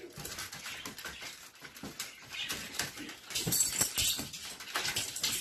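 A litter of puppies whimpering and yipping, with short scratchy clicks as they move about in a plastic pool; the cries grow louder in the last couple of seconds.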